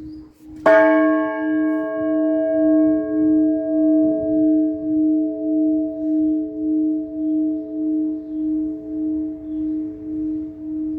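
A single strike of an Orthodox church bell about a second in, over the still-ringing hum of the previous stroke. Its higher partials die away within a few seconds, while the low hum rings on with a slow pulsing beat of just under two pulses a second.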